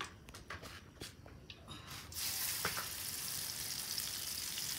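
Cooking oil in a wok sizzling, starting suddenly about two seconds in and holding steady after that; before it, a few light clinks.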